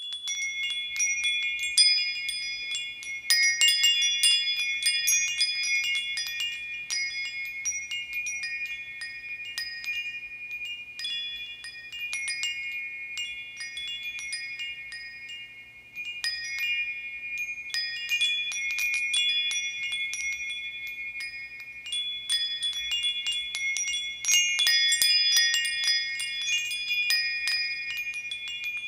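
Metal bar wind chimes clashing in irregular flurries, their high bell-like tones ringing on and overlapping. The ringing thins out about fourteen seconds in, then a fresh burst of strikes starts two seconds later.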